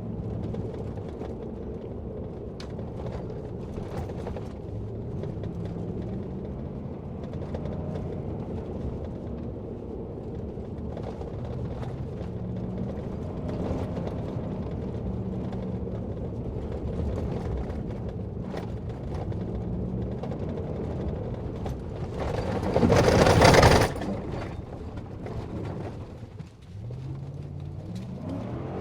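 Inside a vehicle crawling over a rough dirt track: the engine runs with its pitch rising and falling, and the cabin rattles and clicks over the bumps. A loud rushing noise lasts about a second and a half near the end.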